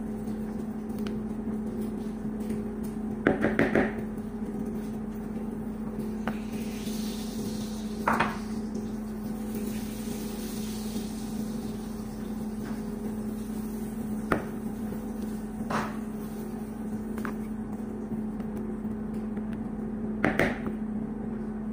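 A steady low electrical hum under a handful of short knocks from a wooden spatula striking the side of a plastic mixing bowl while thick cream filling is folded. The knocks come as a quick cluster of three or four about three seconds in and again near the end, with single taps between.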